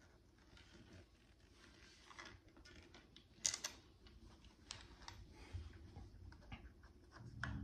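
Faint handling noise of a bass guitar being turned and settled into playing position: scattered light clicks and taps, with two sharper clicks about three and a half seconds in.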